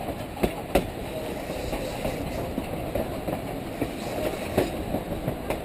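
Narrow-gauge passenger train running, heard from inside a coach: a steady rumble of the car rolling along the track, broken by irregular sharp wheel clicks and knocks.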